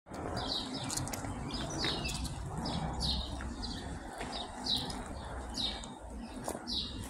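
A small bird chirping over and over, short high notes that slide downward, about one or two a second, over a low steady rumble.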